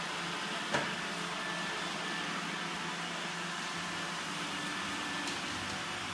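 Robot vacuum running with a steady whirring hum as it drives across a wooden floor, with a single sharp click about a second in.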